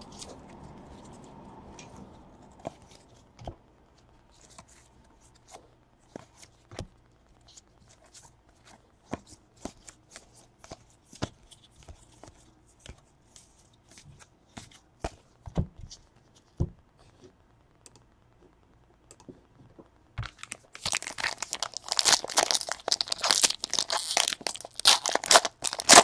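Trading cards being handled and slid past one another, with light scattered clicks. Near the end, a foil trading-card pack is torn open, and its wrapper crackles and crinkles loudly for several seconds.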